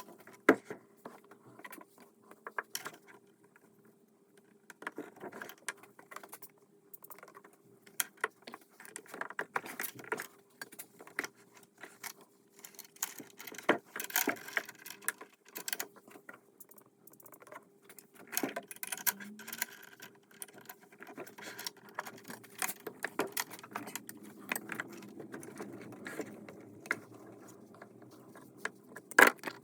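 Hand tools and small metal parts clinking, tapping and knocking at irregular intervals during engine disassembly, over a faint steady hum.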